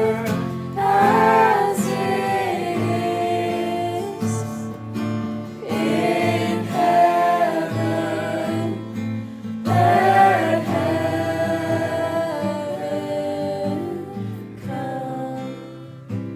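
Gospel song: sung voices over acoustic guitar, in several long phrases, with the singing thinning out near the end and the guitar carrying on.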